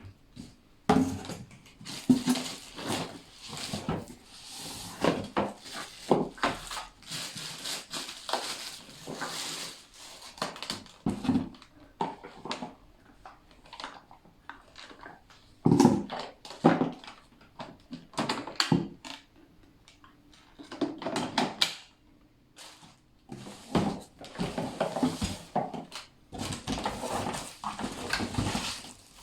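Irregular knocks, clicks and rustling as the plastic parts and packaging of a bagless vacuum cleaner are handled, with no motor running.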